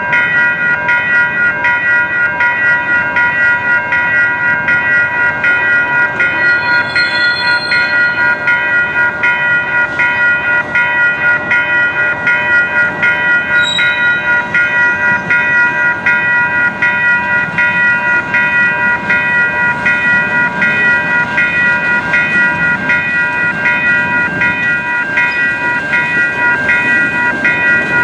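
Railroad crossing bell ringing in rapid, evenly spaced strokes while the crossing signals flash. The low rumble of the approaching freight train grows toward the end.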